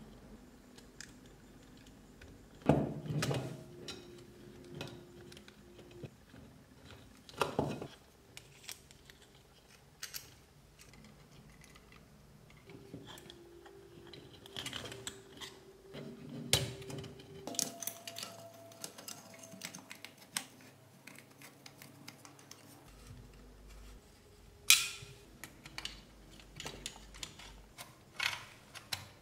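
Scattered small clicks, taps and a few sharper knocks of plastic and metal parts being handled and fitted together on a model car kit, including wire connectors being pushed into their sockets.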